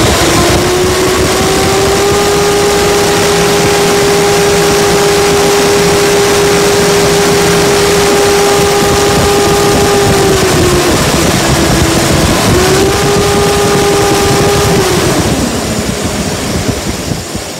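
2010 Mercedes-Benz MBE 4000 12.8-litre inline-six diesel, 370 hp, revved up and held at a steady high speed. About ten seconds in it drops briefly, revs up again for a few seconds, then falls back toward idle near the end.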